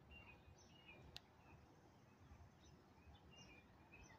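Near silence, with faint, brief bird chirps and a single sharp click about a second in.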